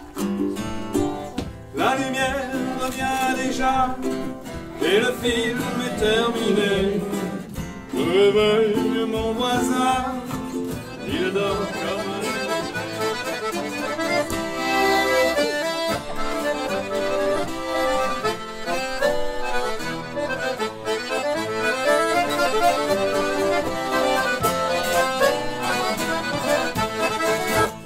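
Button accordion and twelve-string acoustic guitar playing a tune together.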